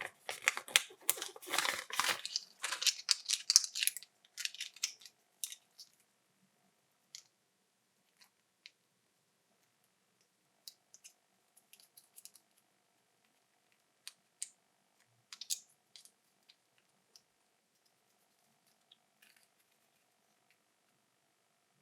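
Candy wrappers crinkling and rustling for the first few seconds, then sparse small clicks and taps of unwrapping and opening the eggs' plastic capsules.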